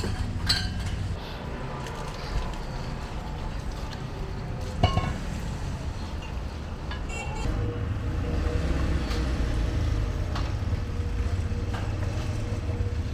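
Busy street-stall background: a steady low rumble of traffic with occasional metallic clinks of dishes and utensils, the sharpest clink about five seconds in.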